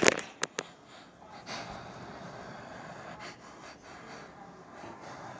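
A loud, sharp breath close to the microphone at the start, followed by a few clicks of handling on a handheld camera over a steady hiss.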